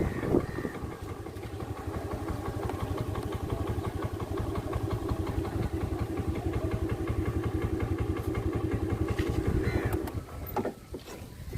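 Motorcycle engine running steadily at a fast, even beat, easing off about ten seconds in, then a few short knocks.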